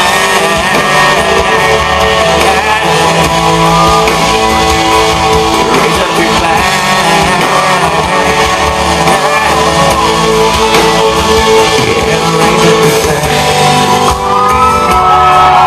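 Live country-rock band playing loudly through the PA, an instrumental stretch with guitar to the fore and no singing.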